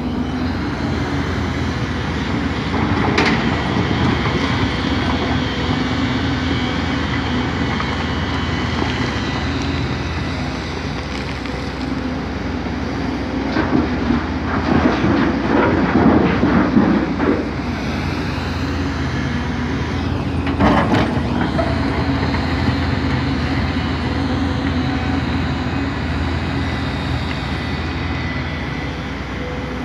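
Hyundai crawler excavator's diesel engine running steadily as the bucket digs earth and rock. About 14 seconds in, a louder clattering stretch of a few seconds as a bucket load of rock and soil drops into a dump truck's bed; sharp knocks near the start and about two-thirds through.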